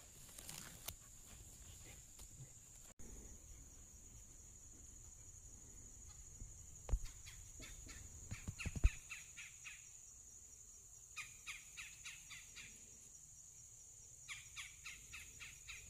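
Faint woodland ambience: a bird calling in three quick runs of repeated notes over a steady high-pitched whine, with two low thumps about seven and nine seconds in.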